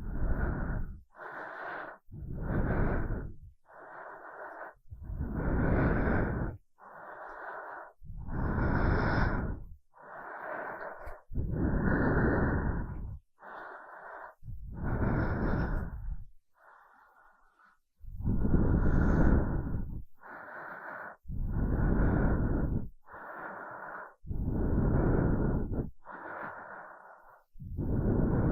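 Close-miked human breathing, slow and steady, with louder breaths that buffet the microphone alternating with softer ones, roughly one every one and a half seconds and a brief pause a little past the middle.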